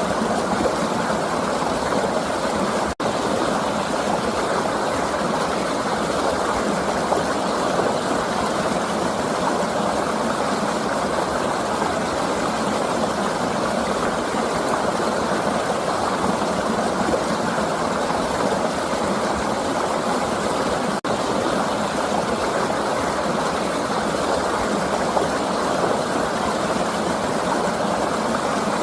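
A flowing river rushing steadily, an even wash of water noise, broken twice by a split-second dropout.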